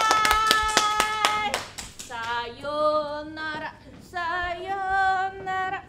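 Hands clapping quickly, about six claps a second, for the first second and a half, with a voice holding a note over it. Then a voice sings two long held notes with vibrato.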